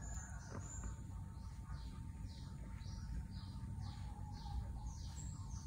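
A bird chirping repeatedly, a run of short falling chirps about two a second that starts about a second in, faint over a steady low background rumble.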